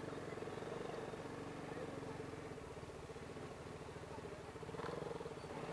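TVS Apache RR 310's single-cylinder engine running at a steady speed, with an even pulse and no revving.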